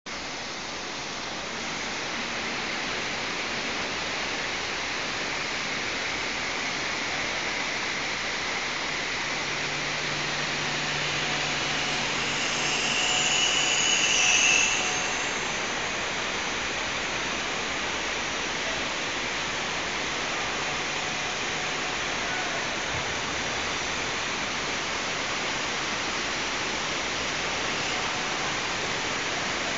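Anyang Ruiheng RHCK8480 mill-roll CNC lathe turning grooves into a hardened steel roll, a steady noise of the machine and the cut. About halfway through it swells to a louder, higher hiss, then drops back and runs on steadily.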